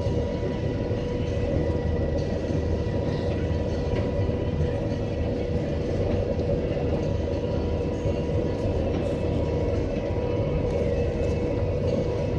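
Combine harvester running steadily while cutting oilseed rape, heard from inside the cab: an even drone with a whine held at one pitch.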